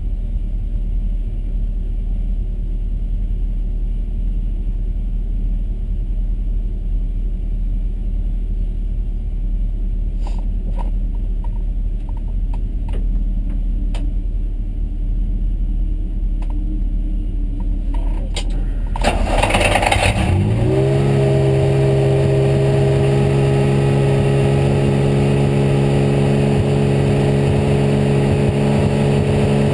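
A low rumble with a few faint clicks, then the Porsche 911 GT3 R's flat-six racing engine fires up with a sudden loud burst about 19 seconds in. It settles into a steady, even idle.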